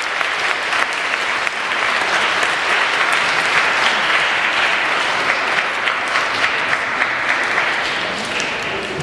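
Audience clapping: sustained applause from a crowd in a hall, easing off slightly near the end.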